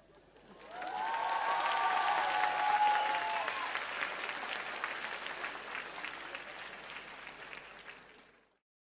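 Audience applauding, with a few high cheering voices over the clapping in the first seconds. It starts about half a second in, fades and cuts off shortly before the end.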